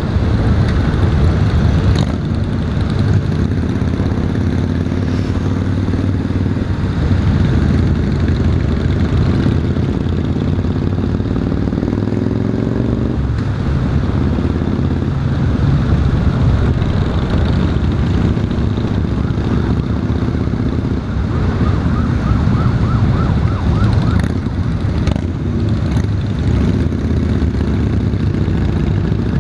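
Honda Valkyrie's flat-six engine running under way, with wind noise and the other motorcycles in the group around it. Partway through, the engine pitch climbs steadily for a few seconds as it accelerates, then drops suddenly at a gear change.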